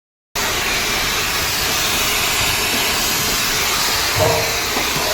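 A steady, loud hiss of escaping gas starts abruptly just after the opening and holds level throughout. This fits work on scrapped air conditioners, either a gas cutting torch or refrigerant escaping from cut lines.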